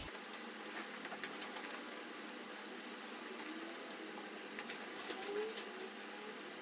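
Fabric cart liner rustling and scraping as its tabs are pushed through the steel side mesh and snapped onto poppers, with scattered small clicks over a steady hiss.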